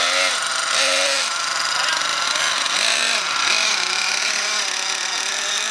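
Small glow-fuel (nitro) engine of an RC monster truck running with a steady high buzz, with voices murmuring underneath.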